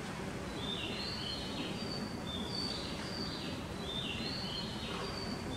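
High chirping bird calls, short phrases that step down in pitch and repeat about once a second, over a steady low hum.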